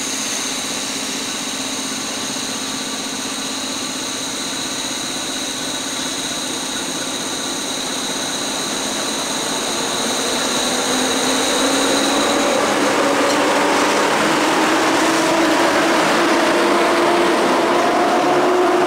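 PKP Intercity EU07 electric locomotive pulling away from a station with its passenger train. A steady high whine from the locomotive stops about two-thirds of the way through. The coaches then roll past, getting louder, with a hum that rises in pitch as the train gathers speed.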